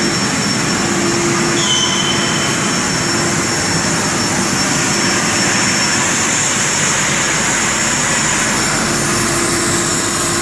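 Cutting torch hissing steadily as it cuts a worn section off a bulldozer blade.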